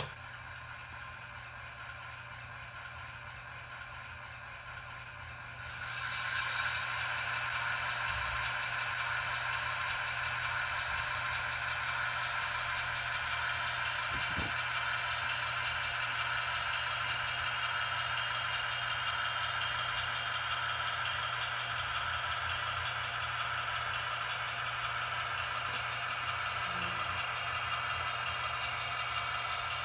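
Zimo sound decoder in a Roco model of a DSB class My diesel locomotive playing a diesel engine running sound through the model's small loudspeaker. The sound runs steadily, gets louder about six seconds in, and carries on as the locomotive moves slowly along the track.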